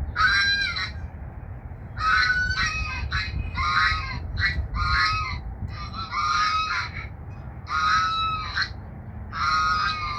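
Geese honking repeatedly, a call about every second, some calls overlapping, over a steady low rumble.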